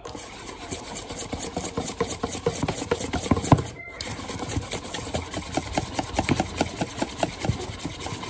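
Wire whisk beating pancake batter in a bowl: a fast, even clatter of the tines against the bowl, broken by a brief pause about four seconds in.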